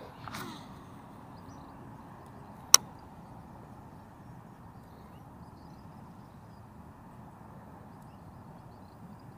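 Fishing rod and reel during a cast: a brief swish just after the start, then one sharp click a little under three seconds in, over a steady faint outdoor background.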